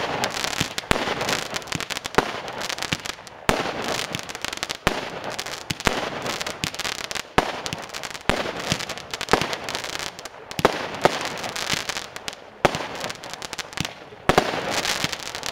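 "Ipanema" firework battery (cake) firing shot after shot, about one a second. Each shot is a sharp launch thump followed by the hiss and crackle of the rising tail and its burst.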